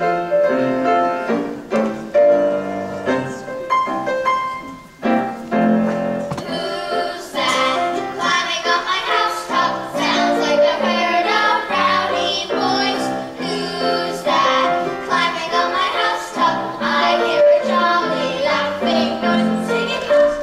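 A group of children singing a musical theatre song together with instrumental accompaniment. The music comes in suddenly at the very start.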